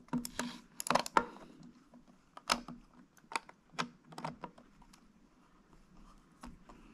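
Irregular small clicks and taps of a bit screwdriver and the plastic mouse shell being handled as the screwdriver's Torx tip is set into a screw on the mouse's underside. The clicks thin out to a few faint ones after about four and a half seconds.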